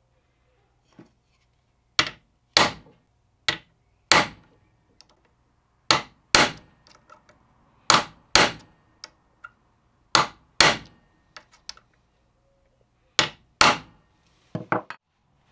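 A hammer striking a steel punch held on the brass handle pins of a wooden-scaled cleaver handle, setting the pins. The sharp metallic strikes mostly come in pairs every couple of seconds, with a few lighter taps in between and a quick cluster of lighter taps near the end.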